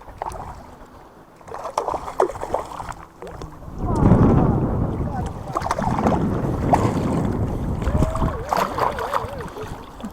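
Wind buffeting the microphone over moving water, in gusts that grow louder about four seconds in, with scattered sharp clicks and knocks of handling and a short wavering tone near the end.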